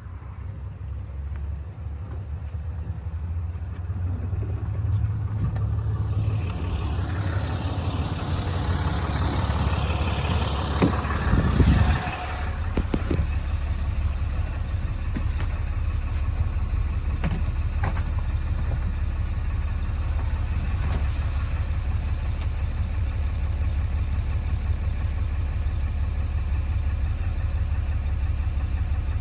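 An engine running: a low hum that grows over the first few seconds, gets louder and rougher to a peak about twelve seconds in, then settles to a steady idle.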